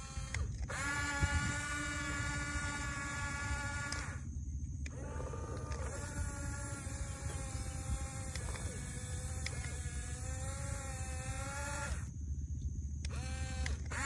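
Huina 1569 RC bulldozer's small electric drive motors and gearbox whining as it pushes sand, the pitch wavering under load. The whine cuts out for about a second roughly four seconds in and again near the end, when the dozer stops.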